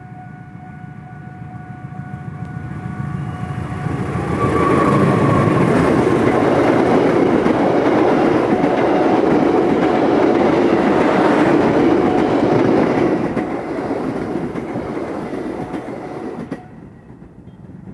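Long-distance passenger train passing close by, its wheels running on the rails. The rumble builds over the first few seconds, stays loud through the middle, eases, and drops off sharply near the end as the last coach goes by.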